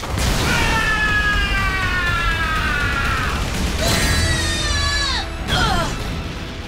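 Cartoon battle sound effects over background music: a long falling pitched screech over a low rumble, then shorter falling cries and a blast as an energy attack hits.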